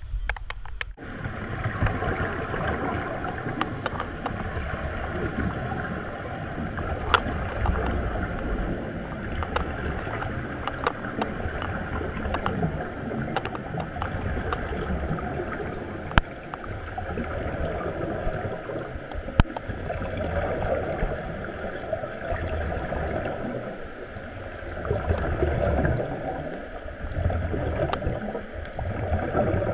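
Scuba divers breathing through regulators, heard underwater through the camera housing: a muffled rush of exhaled bubbles that swells every several seconds, with scattered small clicks and knocks. It starts abruptly about a second in, as the camera goes under.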